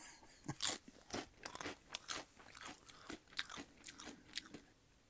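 Close-miked, open-mouthed chewing of crunchy food: a quick, irregular run of crisp crunches and mouth clicks.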